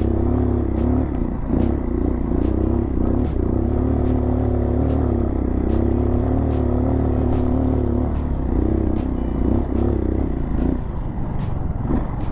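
Dirt bike engine running at a steady throttle while riding through sand, easing off near the end. Sharp clicks recur throughout.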